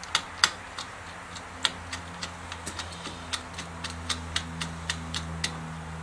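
Sharp metallic clicks from a hand tool tightening a battery terminal bolt: a few uneven clicks at first, then a steady run of about four a second that stops about a second before the end, over a steady low hum.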